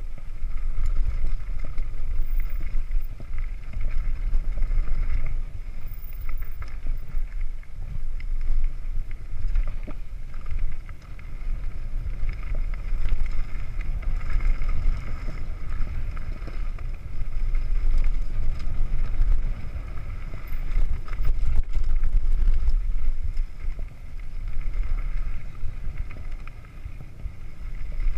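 Downhill mountain bike descending a dirt trail: wind buffeting the rider's camera microphone as a heavy, uneven rumble, mixed with tyre noise on the dirt.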